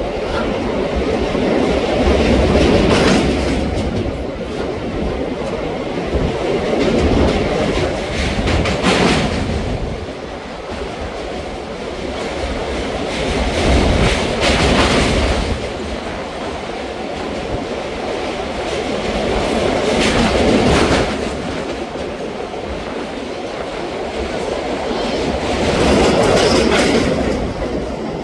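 Express passenger train running at speed, its wheels clattering over the rail joints in a continuous rumble. A louder surge comes about every five to six seconds.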